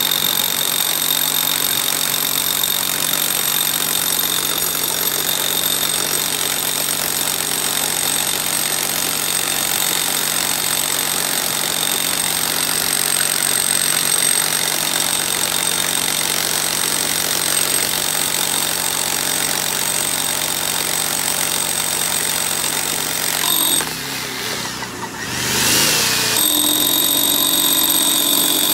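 Heavy electric hammer drill with a long bit boring down into a 12-inch concrete dock pile, its motor running steadily with a high whine. About 24 seconds in the trigger is let off and the drill winds down, then it starts up again and keeps drilling.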